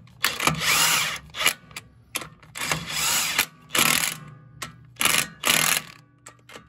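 DeWalt brushless cordless driver spinning new knife bolts down snug into a Vermeer BC1500 chipper drum, in about five short runs of a second or less with pauses between.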